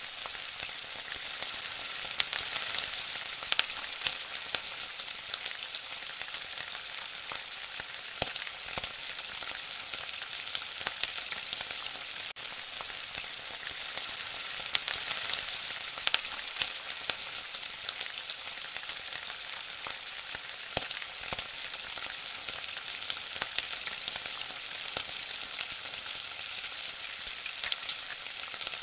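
Food frying in hot oil in a kadai: a steady sizzle with scattered sharp pops and clicks.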